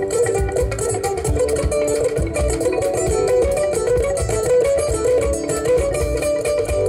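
Live band playing an instrumental passage: an electric guitar picks a quick melody over bass, drum kit and djembe.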